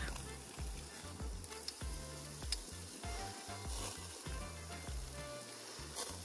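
Beef sizzling on a campfire grill grate, with a few sharp clicks of metal tongs as the pieces are turned.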